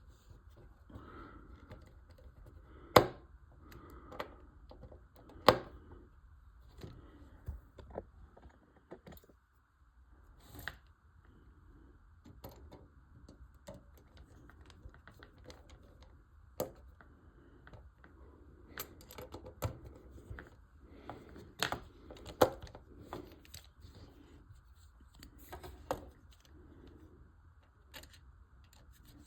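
Small screws being tightened with a screwdriver into a model kit's frame, with the parts being handled: irregular light clicks and taps, a few sharper knocks among them.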